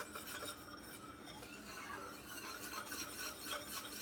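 Sugar syrup for peanut brittle boiling in a stainless steel pan, a steady crackle of small bubbles popping, while a utensil stirs it with a continuous rubbing scrape against the pan. The syrup is being cooked down, thickening and caramelizing toward the stage where it will harden.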